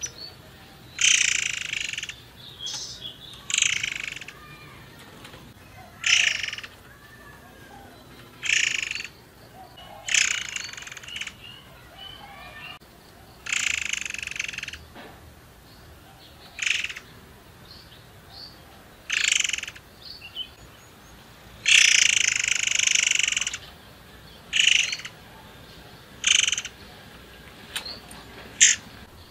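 Caged murai air songbird calling in short, harsh bursts every second or two, with one longer burst of song a little over two-thirds of the way through.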